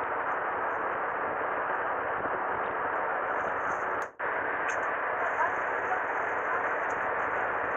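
Steady hiss of wind and sea on the camera's microphone aboard a small fishing boat, with a brief dropout about four seconds in.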